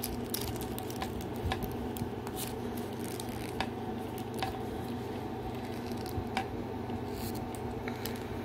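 Irregular small clicks and rubbing of fingers pushing a tiny plastic outfit onto a small plastic doll, over a steady low hum.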